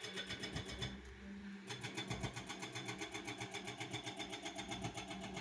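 An engine running steadily with a rapid, even pulse. The higher part of its sound drops away briefly about a second in, then returns.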